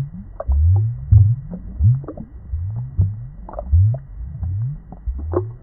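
Underwater bubbling and gurgling: low gurgles rising in pitch, coming irregularly about twice a second, with light clicks over them.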